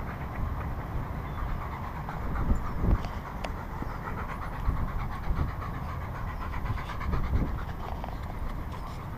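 A dog panting, with a few heavier low thumps about two and a half seconds in and again near seven seconds.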